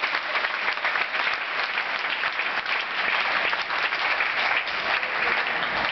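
Spectators applauding: dense, even clapping from an audience, greeting the end of a rally.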